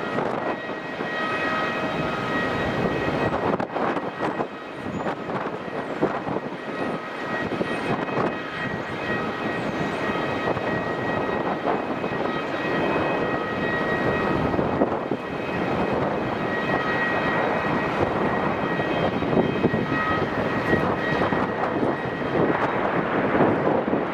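Airbus A380's four turbofan engines running through approach and landing: a steady rushing jet noise with several high, steady whining tones held above it.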